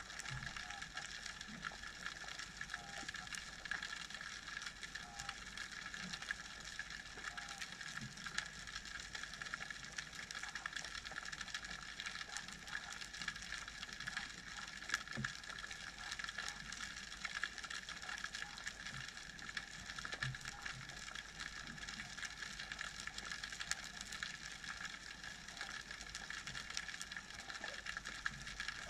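Underwater ambience picked up by a camera on a speargun: a steady hiss with a faint constant tone, filled with dense, faint crackling clicks and a few soft low knocks.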